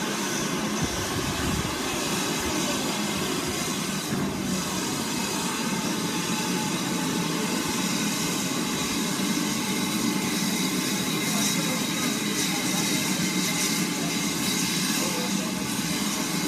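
BR Standard Class 9F steam locomotive close by, with a steady hiss of steam escaping from around its cylinders.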